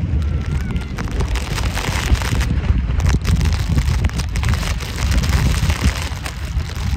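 Very strong mountain-top wind buffeting the microphone: a loud, irregular low rumble with crackles.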